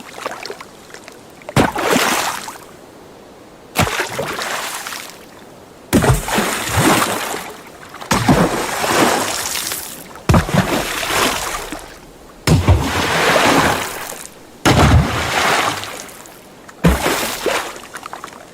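A series of separate water splashes, about one every two seconds: each begins with a sudden impact on the water and trails off into a second or so of splashing and spray.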